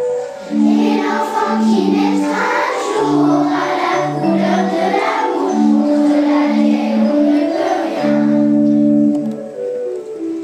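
Children's choir singing together over an instrumental accompaniment of long held low notes.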